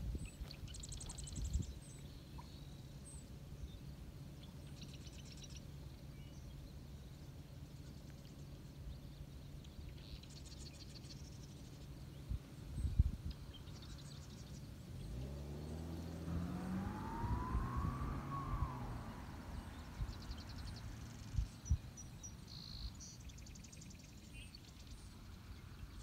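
Quiet marsh ambience with short high chirping trills every few seconds and a few low wind bumps on the microphone. From about 15 to 19 seconds a motor passes, its pitch rising and then falling.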